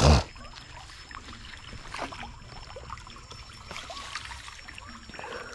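A long-handled dip net slapping into shallow pond water with a short splash, then being swept through the water and weeds along the bank with small sloshes and trickles.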